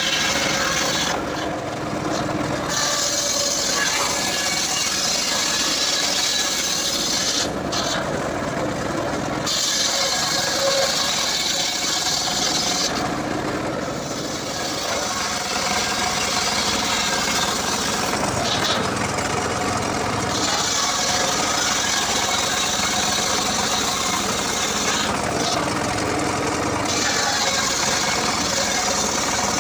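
Homemade circular saw bench ripping a log lengthwise, the spinning blade cutting steadily through the wood. The high hiss of the cut drops away briefly about five times.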